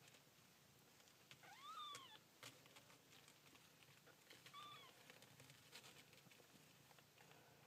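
Eleven-day-old kitten mewing: two thin, high mews, the first a little under two seconds in, rising then falling, the second shorter and falling about halfway through. Faint scattered clicks.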